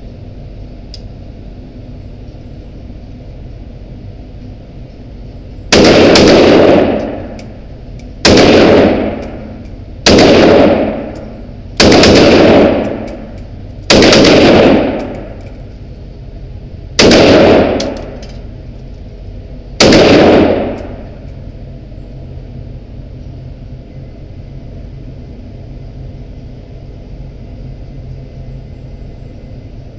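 WASR-10 AK-47-pattern rifle fired seven single shots, spaced two to three seconds apart, from about six seconds in to about twenty seconds in. Each shot overloads the recording and echoes off the walls of the indoor range for about a second.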